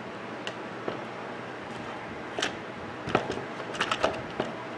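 Hard plastic blender base cover knocking and clicking against the motor housing as it is handled and fitted, in a few sharp taps with a cluster near the end, over a steady background hiss.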